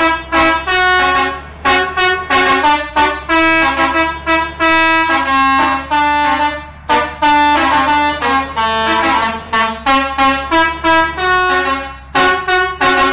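Indonesian 'telolet' multi-tone bus air horn playing a quick melody of short honked notes in rapid runs, pausing briefly twice, over a steady low hum.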